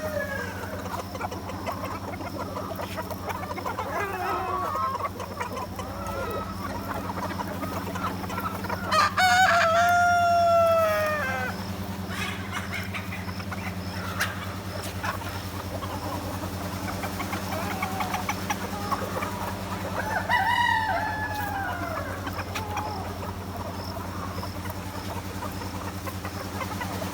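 Australorp chickens clucking throughout, with a rooster crowing twice, about nine seconds in and again about twenty seconds in, each a long call falling in pitch at the end.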